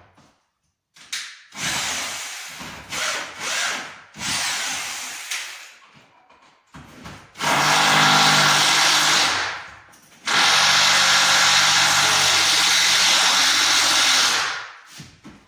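Rotary hammer driving a concrete screw through a floorboard and joist into the concrete base. It makes several short runs, then two long steady runs of about two and four seconds near the end.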